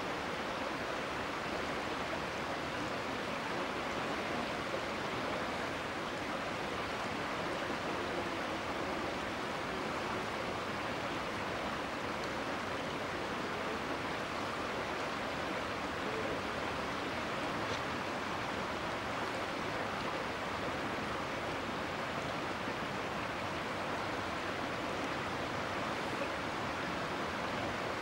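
Steady rushing of fast-flowing river floodwater, an even hiss with no breaks.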